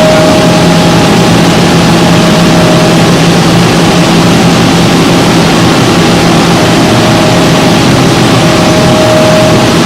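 Tongtai VTX-5 CNC milling and tapping center running: a steady mechanical hum with held tones. The higher tone fades a few seconds in and returns twice near the end.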